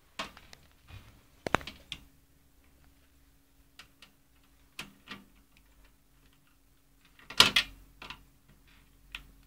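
Scattered clicks and small metallic knocks of a screwdriver and screw working against the sheet-metal back panel of a desktop PC case, as a screw is driven in. The loudest clatter comes about seven and a half seconds in.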